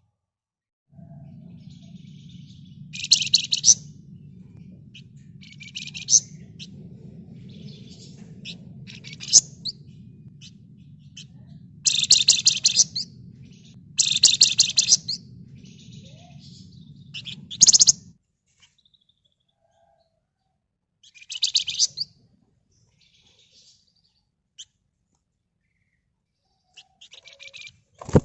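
A flamboyan songbird calling in short bursts of rapid, rattling high trills (ngebren/nyerecet), repeated every two to four seconds. A low steady hum sits beneath the calls until about two-thirds of the way through.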